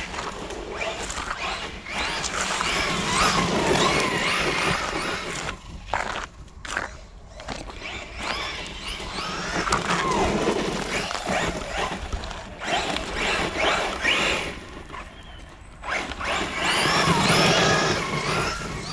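Brushless electric motor of a Maverick Quantum+ Flux RC truck on a 3S battery, whining up and down in pitch with the throttle over the rattle of its tyres and chassis on rough ground, dropping away briefly a couple of times.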